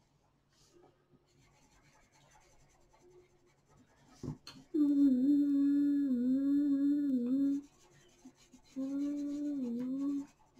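A person humming a wavering tune in two phrases, a longer one near the middle and a shorter one near the end, over faint scratching of coloured pencil on paper, with a light click just before the humming starts.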